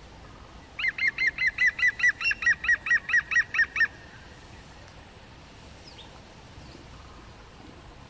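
Middle spotted woodpecker calling: a quick, even series of about fifteen short nasal notes, about five a second, starting about a second in and lasting some three seconds.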